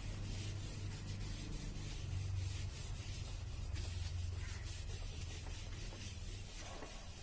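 Handheld eraser wiping a whiteboard in repeated soft rubbing strokes, over a low steady hum.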